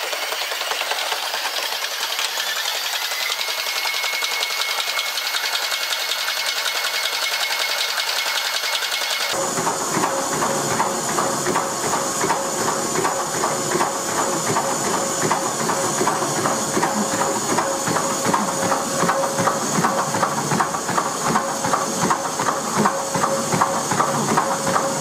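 A treadmill running at sprint speed, about 14 km/h. At first a thin motor whine rises in pitch and then holds steady. About nine seconds in the sound changes abruptly to a runner's quick, rhythmic footfalls pounding the belt over the steady whine of the motor.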